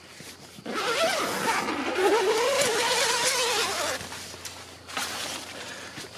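Tent zipper being pulled open in one long rasping stroke of about three seconds, its pitch rising and falling as the pull speeds up and slows, followed by a shorter rasp about a second later.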